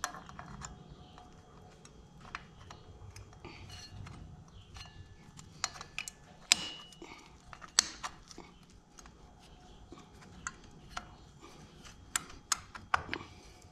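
Scattered metallic clicks and clinks of drum-brake shoes and their return springs being handled and fitted onto the brake backing plate of an ATV's front drum brake. The sharpest clicks come in the middle and near the end.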